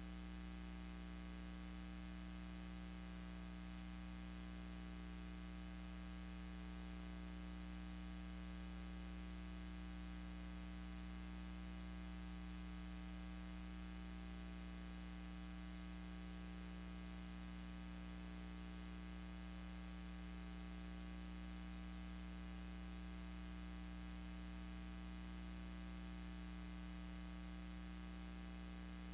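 Steady electrical hum with many overtones over a constant hiss; no sound from the aircraft or water.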